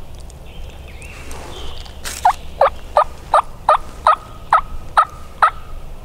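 Turkey yelping: a loud series of nine evenly spaced yelps, starting about two seconds in and lasting some three seconds.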